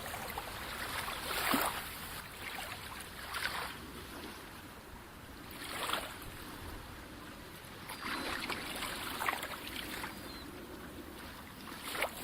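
Calm sea waves washing in. Every couple of seconds a wave surges and splashes, over a steady background wash of water.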